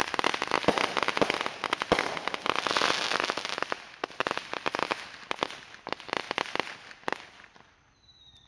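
A long string of firecrackers popping in rapid, dense succession. It thins out over the last few seconds and stops shortly before the end.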